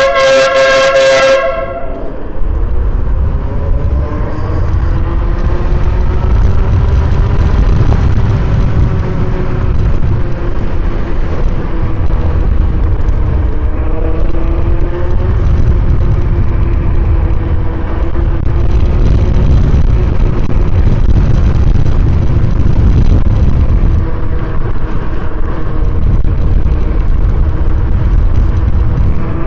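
Dual electric air horns on an electric scooter blasting once, cutting off about a second and a half in. Then the scooter riding along with a motor whine whose pitch rises and falls with speed, under a heavy low wind rumble on the microphone.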